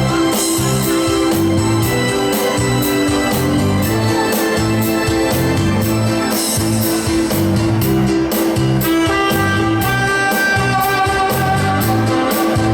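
A live band playing an upbeat instrumental passage with a steady drum beat over a repeating bass line and held keyboard notes.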